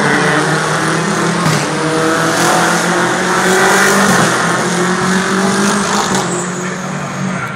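British Touring Car Championship race cars at speed going past the track edge, engine pitch rising as they accelerate. The sound is loudest about four seconds in, then fades as the cars pull away.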